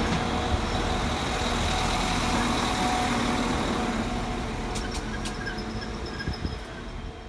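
Class 195 diesel multiple unit running into the platform: a steady diesel engine rumble with a low hum, easing off over the last couple of seconds, with a few faint clicks about five seconds in.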